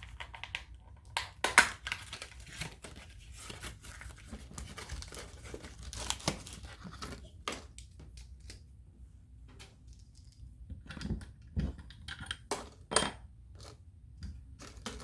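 Workshop handling noise: rustling and scattered clicks and knocks, with one sharp knock about a second and a half in.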